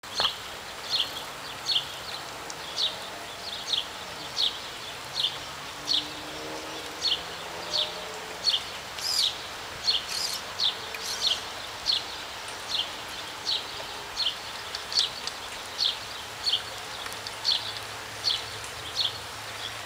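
A bird chirping a short high call over and over at an even pace, about one chirp every three-quarters of a second, with a couple of brighter, sharper calls near the middle.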